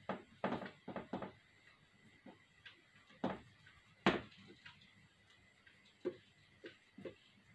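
Felt-tip marker writing on a whiteboard: a series of short, separate strokes and taps, the sharpest about four seconds in.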